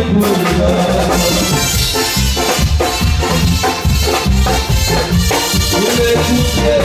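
Live Latin band music played loud, with a steady drum beat.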